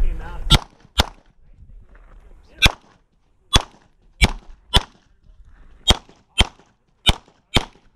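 Glock 17 MOS 9mm pistol firing ten shots, mostly in quick pairs about half a second apart, with short pauses between the pairs as the shooter moves from target to target.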